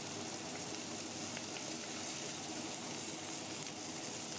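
Steady sizzling of food frying in a wok-style pan on the stove: black-bean dace and Indian lettuce being stir-fried.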